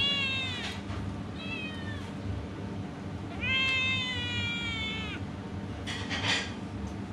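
A cat meowing three times: a call at the start, a short one about a second and a half in, and a longer one a little past halfway. Each call dips slightly in pitch as it goes.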